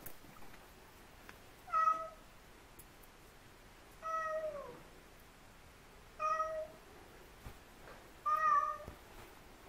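Bengal kitten meowing four times, about two seconds apart; the second meow falls in pitch at its end.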